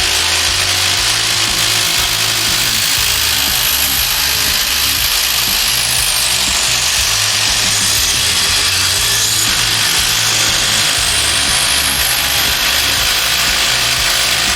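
Cordless impact drivers hammering continuously, driving fasteners into wood under load.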